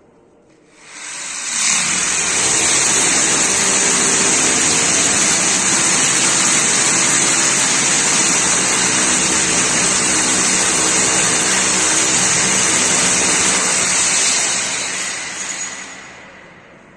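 A power tool's motor runs steadily with a strong hissing whir. It spins up about a second in and winds down near the end.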